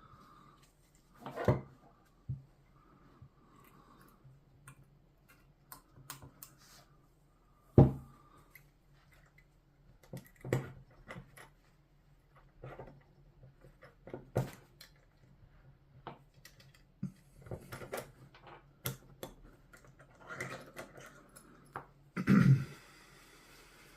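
Scattered clicks, taps and knocks of air-rifle parts and tools being handled at a workbench, the loudest knock about eight seconds in and a short clatter near the end. A low steady hum runs underneath.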